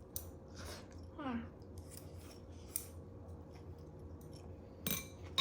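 A few short, sharp snips and clicks of kitchen handling, then a louder ringing clink near the end.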